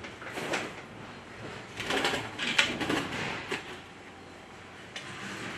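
Hands working the plastic 5900-BT control valve on the filter tank: scraping and rubbing with a few sharp clicks, busiest from about two to three and a half seconds in, as the valve is turned hand tight on the tank threads.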